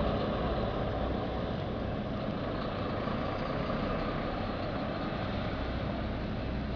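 Heavy truck's diesel engine idling steadily, a constant low hum under a broad even noise.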